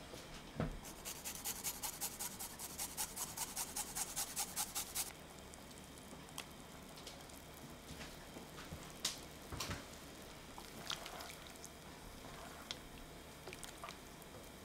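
A garlic clove being grated on a fine grater over a saucepan of mushroom sauce: about four seconds of quick, even rasping strokes, roughly six a second. Scattered small taps and drips follow, and near the end a silicone spatula stirs in the pan.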